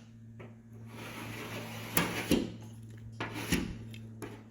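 Light knocks and rubbing from handling a sheet-metal patch panel while its cut lines are marked with a metal pen, with a few sharp knocks around two seconds in and again a second or so later. A steady low hum lies underneath.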